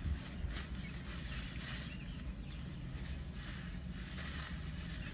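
Paper napkin rustling as fingers are wiped, in soft scattered bursts over a steady low rumble of breeze.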